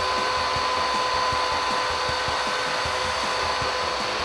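Upright bagless vacuum cleaner running steadily with a constant motor whine as it is pushed over carpet, sucking up a pile of stain-absorbing powder.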